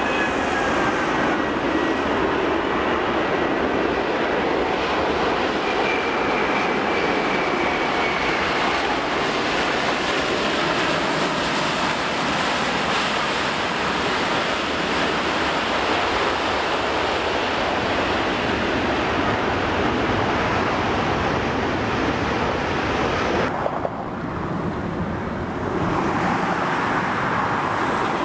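Jet noise from a Qantas Airbus A380's four Rolls-Royce Trent 900 turbofans as it lands and rolls out: a loud, steady rushing roar with a faint high engine whine in the first several seconds. About five seconds before the end the sound turns quieter and duller.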